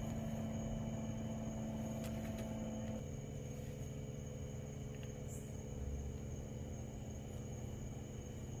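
Steady mechanical hum with a low rumble and a faint high whine, which changes abruptly about three seconds in.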